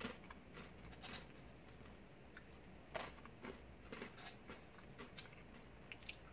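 Faint, scattered light clicks and taps of small chocolate biscuit pieces being pushed into rows on a wooden tray by a gloved hand. The loudest tap comes about three seconds in.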